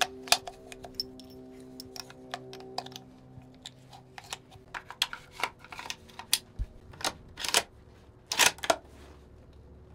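Irregular small clicks and fabric rustles as hunting clothes and gear are handled, with a sharp click just after the start and a few louder rustles between about seven and nine seconds in.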